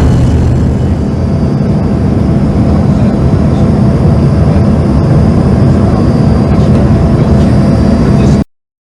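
Airliner cabin noise: the jet engines' steady, loud rumble and hiss. It cuts out abruptly for a moment near the end.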